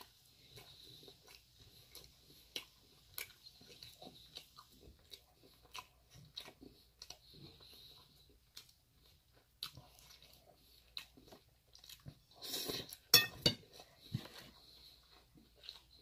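Close-miked chewing and crunching of a lettuce salad eaten off a fork, a series of small wet crunches and clicks. About three quarters of the way through there is a louder cluster of crunches and clicks.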